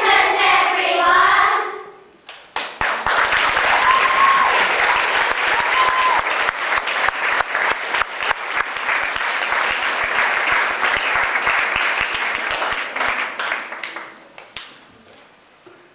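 A children's choir holds its final sung note, which stops about a second and a half in; after a short pause an audience breaks into applause, which dies away near the end.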